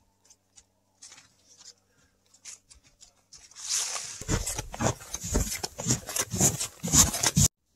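Boots crunching through snow in a steady walking rhythm of about two steps a second. The steps are faint at first, grow loud about halfway through, and cut off abruptly near the end.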